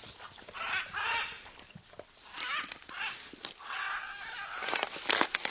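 A parrot calling: a string of short chattering calls and one longer call, followed by a few sharp clicks near the end.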